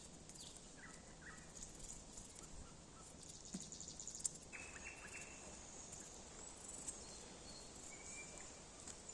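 Faint outdoor evening ambience: insects chirping steadily, with a few short high-pitched chirps about a second in and again about halfway.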